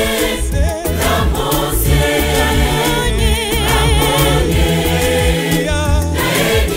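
Gospel choir singing a Bemba-language song, a lead voice with a wavering vibrato over the choir's harmony, backed by a steady beat and bass.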